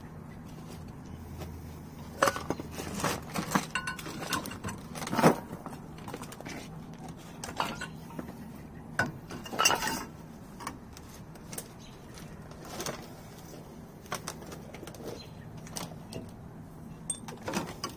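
Irregular metallic clicks and clinks of a breaker bar, socket and extension being fitted and worked on a tight 21 mm caliper bracket bolt, busiest in the first few seconds and again about ten seconds in.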